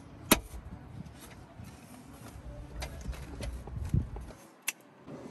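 A handful of sharp plastic clicks and scrapes as a screwdriver pries at a car's sun visor mount and headliner trim, over a low rumble that dies away near the end.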